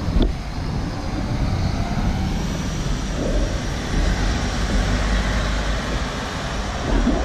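Steady rushing road noise while riding a bicycle: wind buffeting the microphone, with the low rumble of traffic and tyres on the road.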